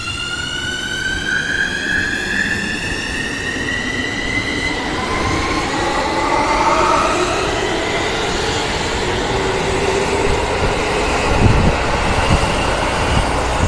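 Keikyu 1000-series electric train pulling away from the platform. Its traction motors whine, rising in pitch over the first five seconds, then give way to growing wheel and running noise as the cars pass, with a few knocks from the wheels near the end.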